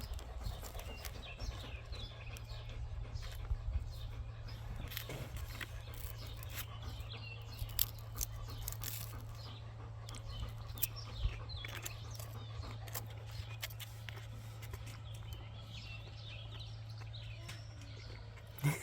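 Small birds chirping repeatedly in short, quick calls, with scattered sharp clicks and a steady low hum underneath.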